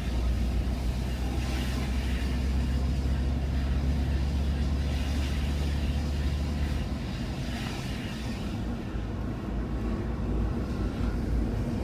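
2001 Jeep Grand Cherokee driving on the road: a steady low engine and road drone with tyre noise above it, the low drone easing off about seven seconds in.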